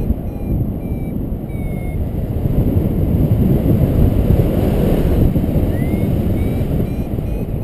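Wind rushing over the microphone of a paraglider in flight, with a variometer beeping in short, high pips, the beeping that signals the glider is climbing. The beeps stop for a few seconds in the middle and start again near the end with a short rising pip.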